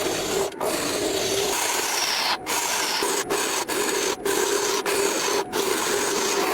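Wood being abraded by a power tool: a steady rasping, rubbing noise over a low motor hum, broken by several brief dropouts.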